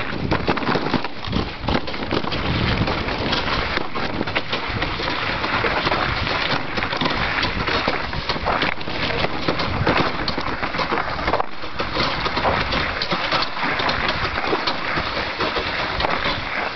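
Sled runners scraping over snow and ice as the sled is pulled: a steady rough hiss full of small crunches.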